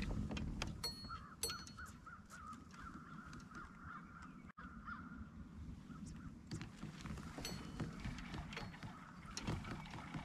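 A bird calling in a quick run of repeated notes, about four a second, for a few seconds in the first half, over a low steady rumble.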